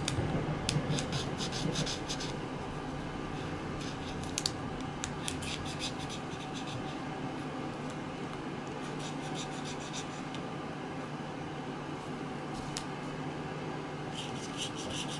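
Felt-tip marker scratching across origami paper as stripes are drawn on it: short bursts of quick strokes with pauses between them, over a steady low hum.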